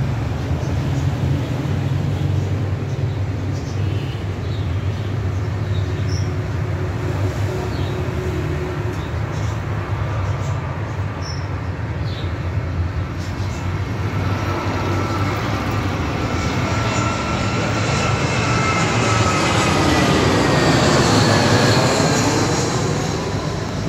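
Airbus A320 jet airliner on final approach, gear down, passing low overhead. Its engine noise builds over the second half and is loudest about twenty seconds in, with whining tones that glide downward as it passes. Under it runs a steady low background hum.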